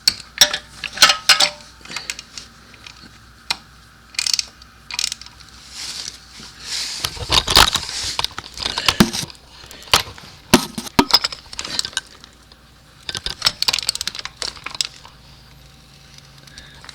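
Metal hand tools clinking and clattering as an oil filter cup wrench is handled and fitted onto a motorcycle's oil filter: an irregular string of sharp metallic clicks and knocks, with a longer scraping rustle midway.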